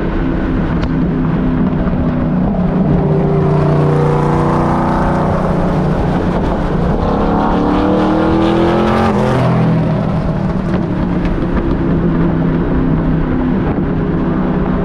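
Straight-piped 540 cubic inch aluminum big-block V8 of a 1969 Camaro Z28 running at highway speed. Its pitch sweeps up and back down twice, once about four seconds in and again around eight seconds, over road noise.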